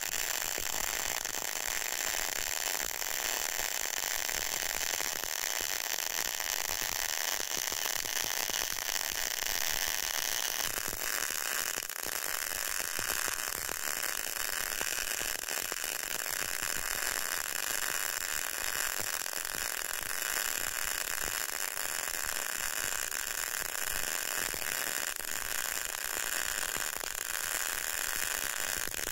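Semi-automatic CO2 arc welding with low-current solid wire, running a vertical fillet weld on a steel T-joint while weaving the torch side to side: a steady, even crackle from the arc. Its tone shifts slightly about eleven seconds in.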